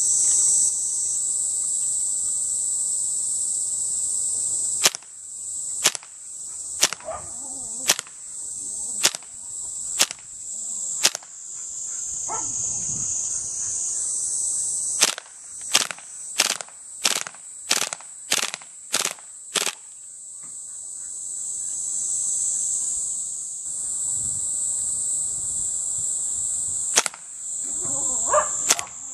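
Maruzen Ingram M11 gas blowback airsoft submachine gun firing single shots, each a sharp crack with the slide's blowback. About one shot a second, then a quicker string of about two a second, then a few more near the end.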